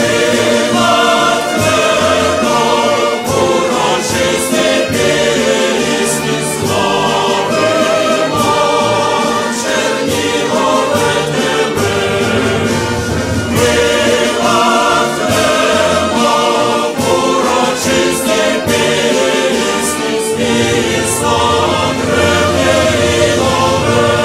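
Choral music: a choir singing held, slowly changing chords.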